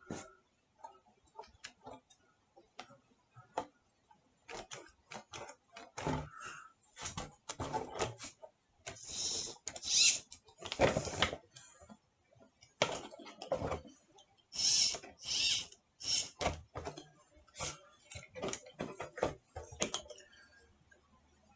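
Scattered clicks and knocks, with several short bursts of rustling: handling sounds of an RC truck being unpacked from its box.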